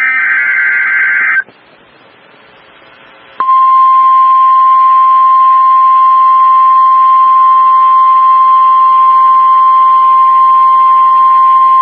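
The last second of an EAS/SAME digital header, a harsh warbling data burst, followed by a short pause. Then the steady single-pitch Weather Service alert tone, about 1050 Hz, starts about three seconds in and holds loudly for around nine seconds, signalling that a warning message is about to be read.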